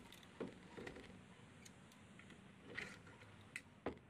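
A handful of faint, irregular clicks and taps of steel locking pliers and nails handled against a plastic septic riser.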